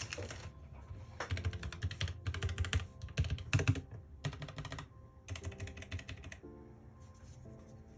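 Typing on a Keychron K3 low-profile mechanical keyboard with Gateron Brown switches: several quick bursts of keystrokes with short pauses between them, which stop a little over six seconds in.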